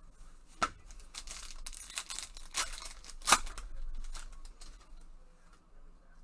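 Foil wrapper of a trading card pack being torn open by hand: crinkling and tearing, with two sharp snaps, the louder one a little over three seconds in.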